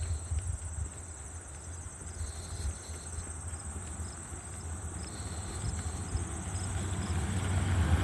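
Insects trilling steadily in a high, continuous pulsing chorus, over a low rumble that grows louder toward the end.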